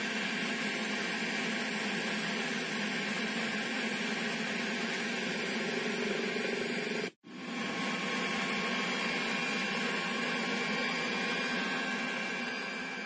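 Steady engine and air noise inside an aircraft cabin, with a faint high whine over it. It cuts out for a moment about halfway through, then resumes and fades near the end.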